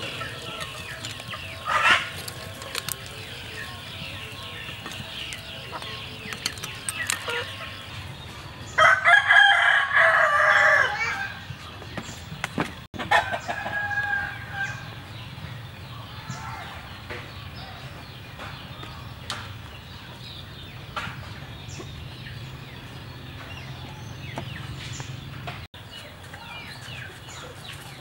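Rooster crowing, one loud call of about two seconds near the middle, with shorter chicken calls before and after.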